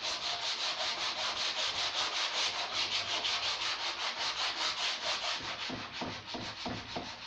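Sandpaper on a wooden sanding block rubbed by hand over an old timber tabletop, in rapid back-and-forth strokes of about five a second, easing a little near the end.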